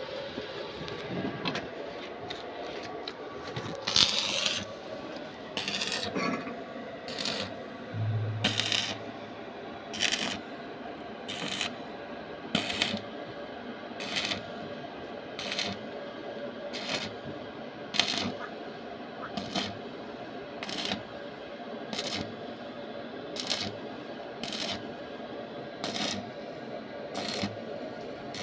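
Sharp metallic strikes repeated at a fairly even pace, about one every second and a half, over a steady background hum.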